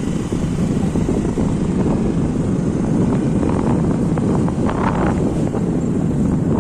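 Steady wind rush and low rumble on the microphone of a motor scooter riding along a road, with the scooter's running and road noise mixed in.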